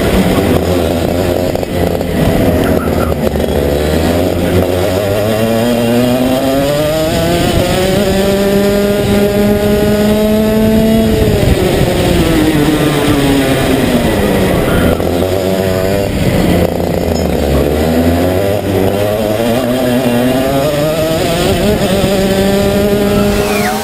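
Racing kart engine heard from on board, revving up through the gears of a straight. It holds high for a few seconds, drops away about halfway through as it slows for a corner, then climbs again.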